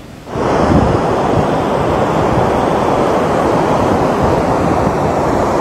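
Roar of the Aharbal waterfall's gushing water, a loud, steady rush that comes in a moment after a brief dip.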